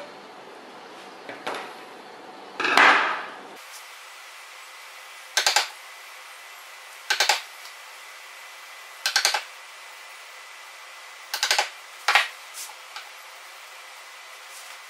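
A chisel being struck into plywood in five short bursts of two or three quick sharp taps, roughly every two seconds, chopping out a notch. A brief, louder scrape comes about three seconds in, before the taps.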